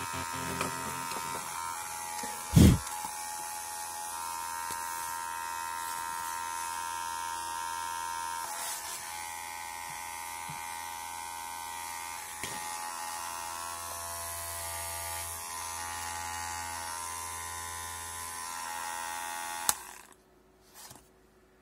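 Small DC motor of a homemade cardboard-box grinder running steadily with its grinding disc spinning free, a whine made of several even tones. There is a single loud thump about two and a half seconds in, and near the end a sharp click after which the motor sound stops.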